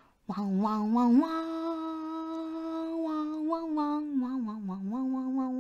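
A woman's voice humming a tune without words, holding one long note for about two seconds from about a second in, then moving through shorter notes.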